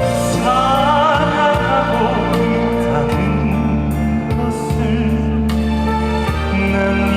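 Music: a song with a wavering lead melody over a sustained accompaniment.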